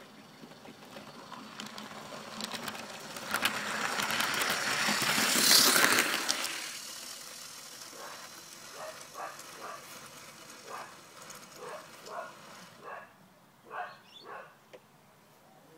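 An HO-scale model train running past, its wheels and motor getting louder to a peak about five seconds in, then fading away. In the second half, a string of short, pitched calls repeats every half second to a second.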